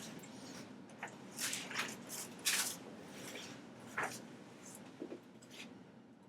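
Rustling and shuffling of a person turning over face down on a padded treatment table, with a few soft clicks and creaks from the table.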